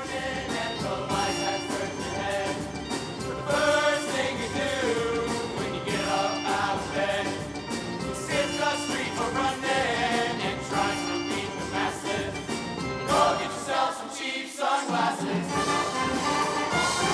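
All-male show choir singing with instrumental backing. The bass drops out briefly about fourteen seconds in.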